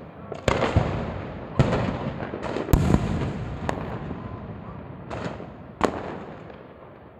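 Fireworks exploding: about ten sharp bangs at irregular intervals, some in quick clusters, each trailing off in a rolling echo.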